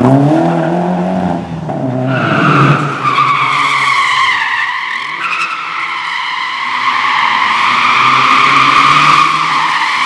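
A car engine revs hard for about two seconds as the car pulls away. Then a Lada's tyres squeal in one long continuous screech, wavering a little, as it slides in tight circles on a concrete floor.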